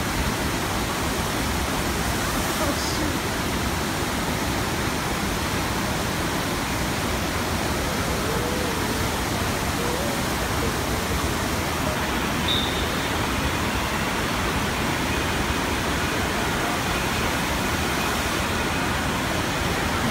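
Steady rush of water sheeting up and over a FlowRider surf simulator, a constant noise, with faint voices in the background.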